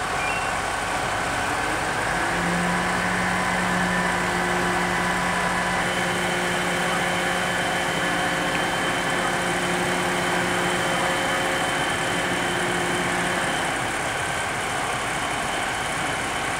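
Diesel engine of a fire service aerial platform truck running steadily. A low, steady hum sets in about two seconds in and stops a few seconds before the end.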